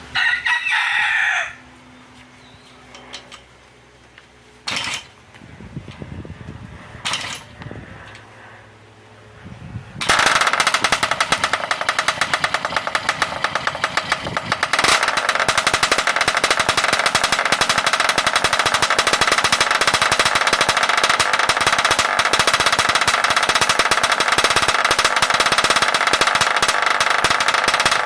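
Small scooter engine with a test-fitted aftermarket exhaust pipe starting about ten seconds in and then running steadily, a loud rapid rattling beat. Before it, a short falling sound and a few sharp knocks.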